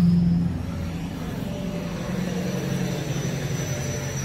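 A steady low engine hum, loudest in the first half-second, with a faint high whine slowly rising in pitch.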